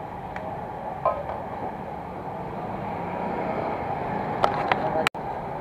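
Street traffic noise with motorcycle engines running and passing. A short high toot comes about a second in, a few sharp clicks come near the end, and the sound cuts out for an instant.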